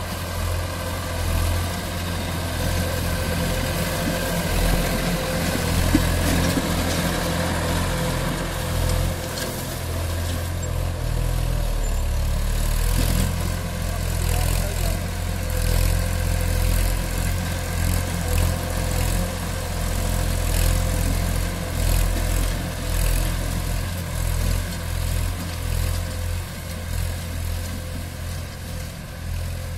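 Massey Ferguson 241 tractor's three-cylinder diesel engine running steadily as it pulls a disc harrow through chopped banana stalks.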